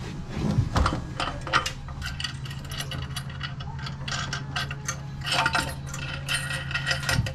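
Scattered light metallic clinks and taps as a marine engine is handled and guided down onto its mounts, over a steady low hum.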